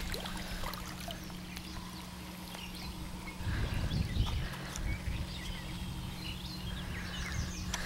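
Outdoor ambience: low rumble of wind and handling on the microphone, swelling for about a second midway, over a steady low hum, with a few faint short chirps.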